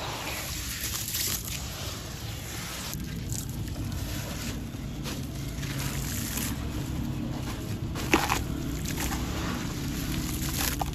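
Hands sloshing through muddy water in a plastic tub, then crumbling a soaked gritty sand chunk so that pieces splash and trickle back into the water. A single sharp knock about eight seconds in.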